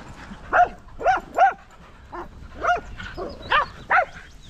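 Small dog barking repeatedly: about six sharp, high-pitched barks at short, uneven intervals, with a couple of fainter yaps between them.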